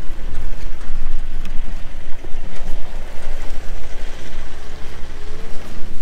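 Mitsubishi L200 pickup's engine working hard as it tows an off-road caravan up a grassy slope, its pitch rising near the end, under a heavy steady low rumble.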